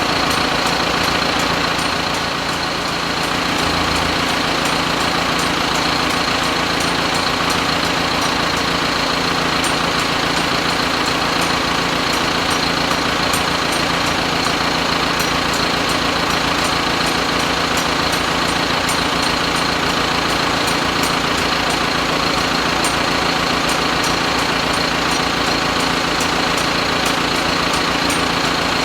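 An engine idling steadily with a fixed pitch and a light, regular ticking.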